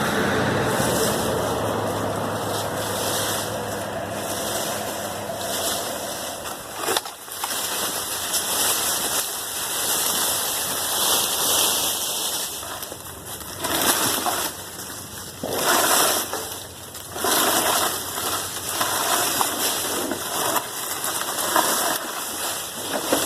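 Gas chainsaw running and cutting into a tree trunk: a steady engine note that fades over the first several seconds, then several short, noisy bursts of cutting in the second half.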